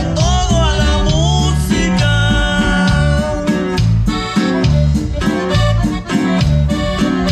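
Norteño music: accordion playing over plucked strings and a steady bass line.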